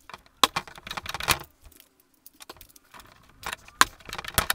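Hand pop rivet gun being squeezed again and again to set a pop rivet through a rod holder's flange into a plastic kayak deck. Sharp metallic clicks and rattles come at uneven intervals.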